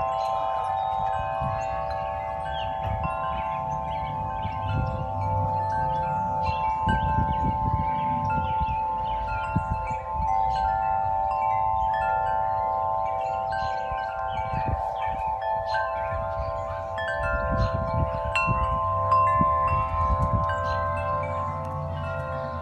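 Several tuned metal-tube wind chimes ringing in the wind, many overlapping tones that hold and fade, with gusts of wind rumbling on the microphone.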